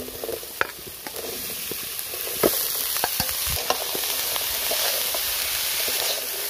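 Chopped fig pieces and a yellow spice paste frying in a pan, sizzling while a spatula scrapes and knocks through them as they are stirred. The sizzle grows louder about two and a half seconds in.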